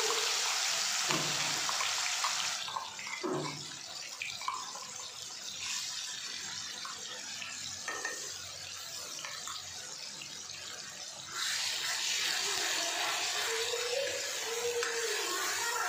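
Wet onion, ginger and garlic paste sizzling and spattering in hot oil in an aluminium kadhai, with a few clacks and scrapes of a steel ladle against the pan as it is stirred. The sizzle is loud for the first couple of seconds, drops quieter through the middle, and comes back loud for the last few seconds.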